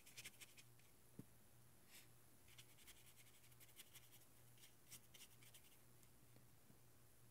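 Faint brushing of a watercolor brush stroking over damp paper as the paint is blended, a run of short scratchy strokes that stop about five and a half seconds in, over a steady low hum.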